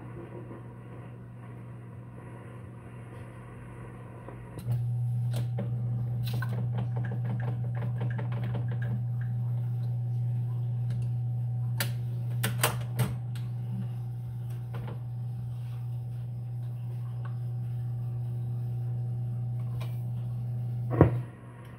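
Rock-Ola Imperial 20 jukebox's record changer cycling between records. A steady motor hum steps up about five seconds in, with scattered mechanical clicks and knocks as one record is lifted off the turntable and the next is set down. A sharp clunk comes near the end.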